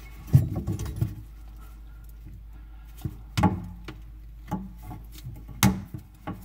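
A few scattered knocks and rubs, about four spread over several seconds with quiet between: handling noises as a rubber pop-up linkage connector is worked onto the drain's pivot rod under the sink.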